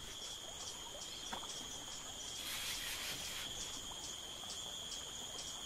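Insects trilling steadily in a high, unbroken drone.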